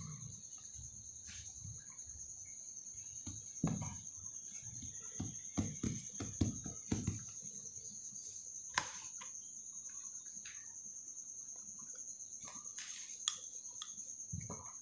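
Hands pressing and patting a ball of pizza dough flat on a floured wooden board, giving scattered soft thumps and knocks, with a rolling pin starting near the end. A steady high-pitched trill runs underneath.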